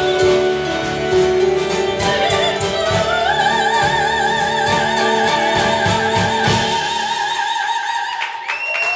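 A woman's operatic voice rises to a long, high final note held with a strong vibrato over the backing music. The accompaniment drops out shortly before the note ends, and the audience begins to applaud and cheer right at the end.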